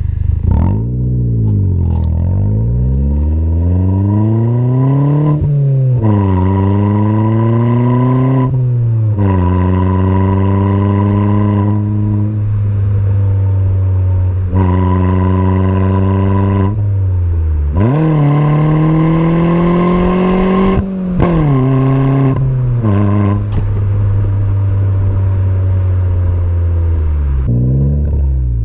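Ford Fiesta Zetec S with a custom exhaust pulling through the gears. The engine note rises with the revs and drops sharply at each gear change, several times, with stretches held steady between them.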